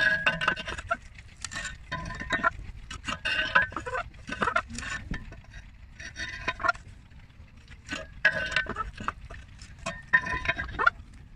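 Homemade steel pole-climbing shoes clanking against a concrete pole, a metallic rattle and ring with each step, coming roughly every one to two seconds.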